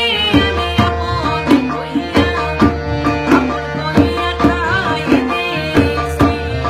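A woman singing a Bengali song in a bending, ornamented melody over tabla, which plays an even rhythm throughout, with a steady held note underneath.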